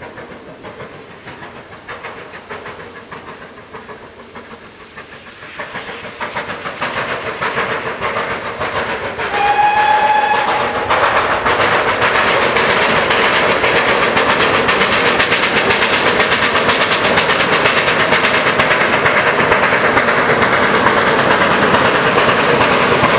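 Two steam locomotives double-heading, BR Standard 9F 2-10-0 No. 92212 leading and Black 5 No. 44767 behind, blatting hard as they work a train away, their exhaust beats getting louder as they near. A single short steam whistle sounds about ten seconds in.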